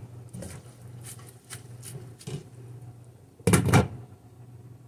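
Glass pot lid set down onto a steel cooking pot with a clatter about three and a half seconds in, after a few light clicks. A steady low hum runs underneath.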